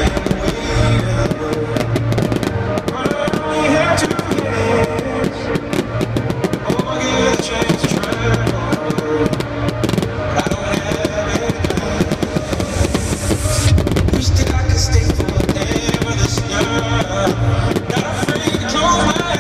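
Loud electronic dance music from a concert sound system, with a heavy bass line, overlaid by fireworks: many sharp bangs and crackles of aerial shells bursting throughout.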